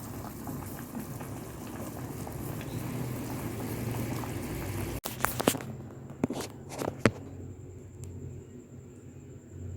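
A pot of chicken-feet and chayote soup boiling, a steady bubbling hiss with a crackle. About halfway through it cuts off suddenly, and a few sharp knocks follow over the next two seconds.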